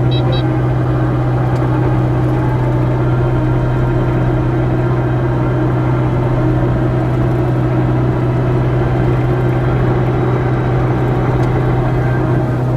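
Kubota KX057-4 mini excavator's diesel engine running steadily, a loud constant hum with a strong low tone.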